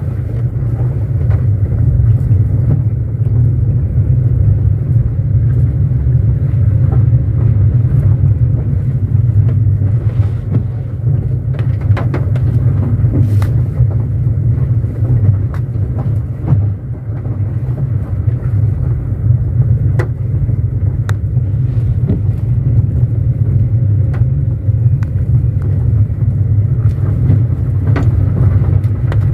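Car driving on a wet gravel and dirt road: a steady low rumble of tyres and engine, with scattered sharp ticks and knocks.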